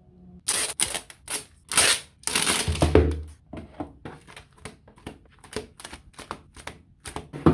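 Hands handling a DVD box set and its packaging: an irregular run of sharp clicks and taps mixed with short rustles. It starts about half a second in, and there is a louder knock at the very end.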